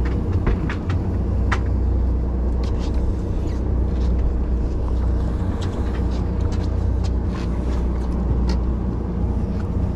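Steady low drone of a sportfishing boat's engine running, with scattered light clicks and ticks over it.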